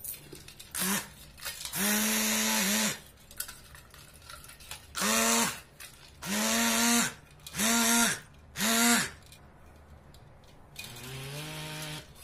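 Hand-held immersion blender whipping homemade cream in a steel bowl, run in about six short pulses, its motor whining up to speed and winding down each time.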